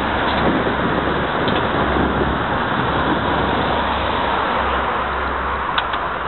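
Steady rushing noise of a bicycle ride on paving: wind on a handlebar-mounted camera's microphone and the front tyre rolling, with an uneven low rumble and two faint clicks near the end.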